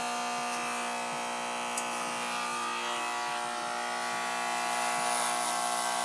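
Electric hair clippers with a comb guard buzzing steadily as they cut through a child's short hair. The sound grows slightly louder about five seconds in.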